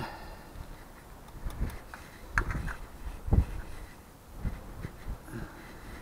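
Handling noises from hands fitting a part onto a car's front strut tower: a few soft knocks and rubbing sounds, the loudest a dull thump about three and a half seconds in.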